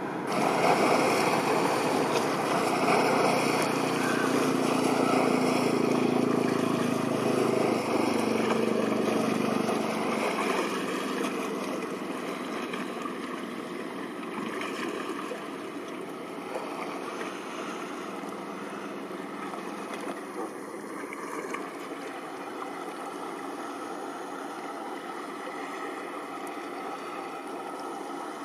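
An offshore supply ship passing close gives off its engine rumble and the rush of its wash. This is louder for the first ten seconds, then settles to a steady hiss of water and wind.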